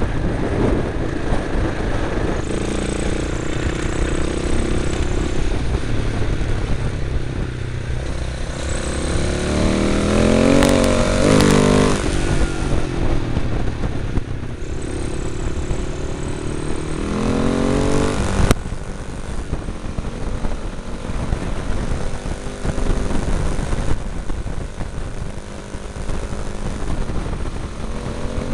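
Motorcycle engine heard from onboard while riding, under a constant rush of wind on the microphone. The engine revs up hard twice in the middle, its pitch climbing steeply each time.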